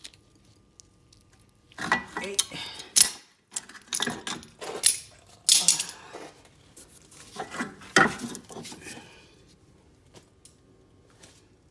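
Metal brake parts and tools clinking and rattling as they are handled at the rear brake caliper. A string of sharp clinks runs from about two to nine seconds in, with the louder ones around three, five and a half, and eight seconds.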